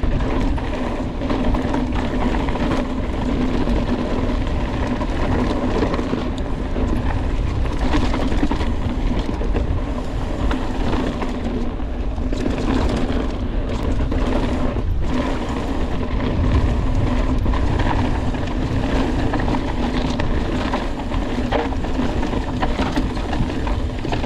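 Mountain bike rolling fast down a dirt singletrack: continuous rush of wind on the bike-mounted microphone mixed with tyre rumble over the trail.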